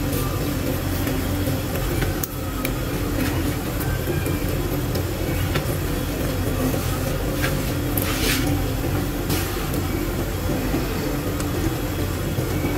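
A steady low hum, with a few faint clicks and a short scrape about eight seconds in.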